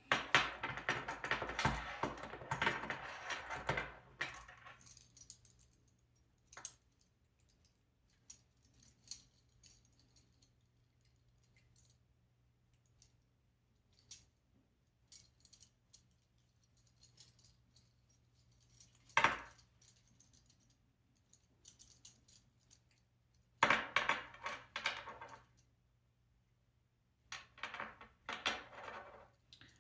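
Small robot-kit parts being handled during hand assembly, clattering and clicking: a long clatter at the start, scattered clicks, a sharp knock about two-thirds through, and two more bursts of clatter near the end.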